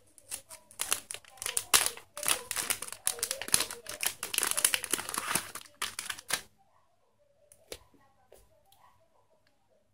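Clear plastic packaging bag crinkling as it is handled and opened, a dense run of crackles lasting about six seconds that then stops, leaving only a few faint clicks.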